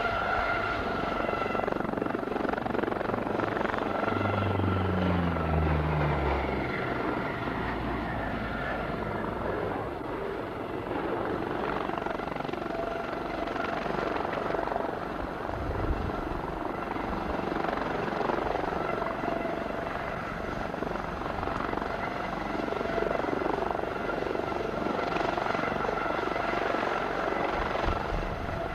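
US Coast Guard Aérospatiale HH-65B Dolphin helicopter hovering low, its twin turboshaft engines and rotors running steadily with a constant high whine over the rotor noise.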